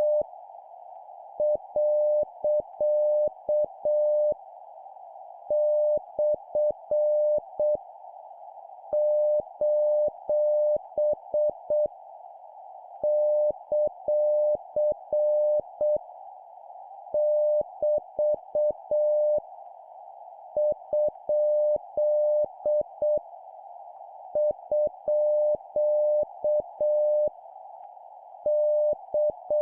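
Morse code practice tone, a single pitch near 600 Hz keyed on and off in dots and dashes at 7 words per minute, sending punctuation characters in groups of a few seconds, with pauses of about a second between them. A steady hiss runs behind the tone.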